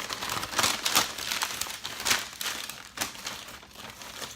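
Sandwich wrapper being unwrapped by hand, crinkling in a run of irregular crackles that thin out near the end.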